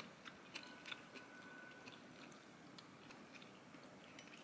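Faint chewing, with a few small clicks of wooden chopsticks against a ceramic plate.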